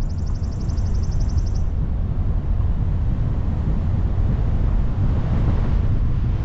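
Steady low rumble of wind and tyre noise from a car driving. During the first second and a half a high, fast trill of evenly spaced pulses sounds over it.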